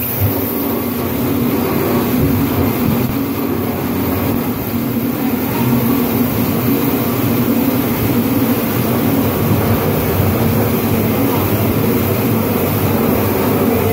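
Servo-motor veneer peeling lathe with clipper running as it peels a log into veneer: a loud, steady mechanical drone.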